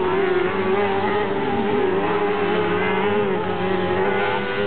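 Several motorcycle-engined crosskarts racing at high revs, their engine notes overlapping and wavering in pitch as they lift off and accelerate again around the dirt track, one note dipping briefly just under two seconds in.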